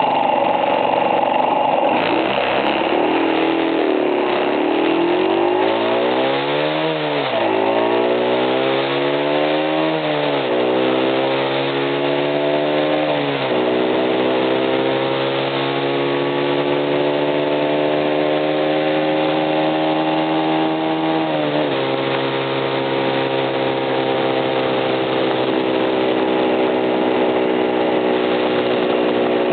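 Honda CB50 single-cylinder four-stroke engine being revved: blipped up and down three times, then held at a raised speed with a brief dip about two-thirds through, dropping back at the end. It is the engine the owner reports as making an abnormal noise.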